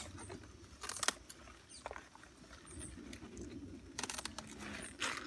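Pruning shears snipping collard green stalks, a few short sharp cuts, with the big leaves rustling and crackling as they are gathered.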